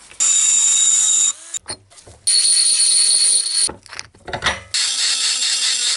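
Small handheld rotary grinder running in three bursts with a high whine, grinding dimples into the inside of a bored hole in a metal plate so resin cast in it will grip.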